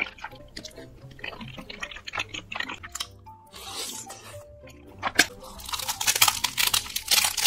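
Close-miked eating sounds: wet slurping and chewing of cheesy noodles, then, about five seconds in, loud crisp crunching as a seaweed-wrapped triangle rice ball is bitten and chewed. Background music plays throughout.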